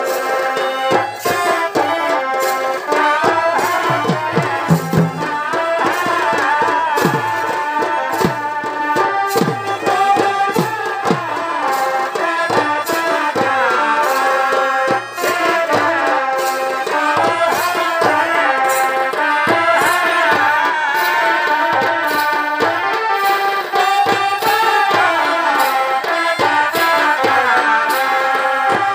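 Chhau dance music: a pitched melody on a reed pipe, bending up and down, over fast, steady drumming.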